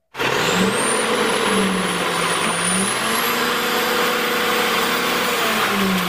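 Front-loading garbage truck's engine running with its note shifting a few times as the hydraulic forks lift a dumpster over the cab, with a thin high whine that wavers in pitch.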